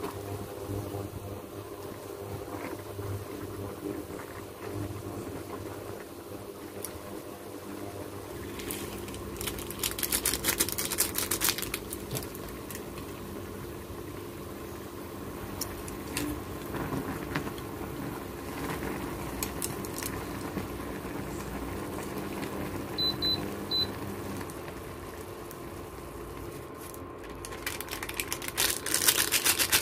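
Instant noodles boiling in a pot on an induction cooker, over a steady electrical hum. Crinkly plastic packet rustling about ten seconds in and again near the end as a seasoning sachet is handled and shaken out, with two short high beeps a little past twenty seconds.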